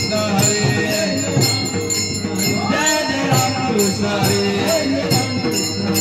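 Devotional bhajan music: a man singing a melodic line while small hand cymbals (taal) clash on a steady beat.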